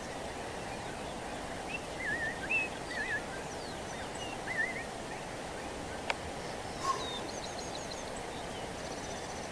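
Wild birds calling over a steady outdoor hiss: a few short, wavering whistled notes in the first half, then fainter high chirps, with one sharp click about six seconds in.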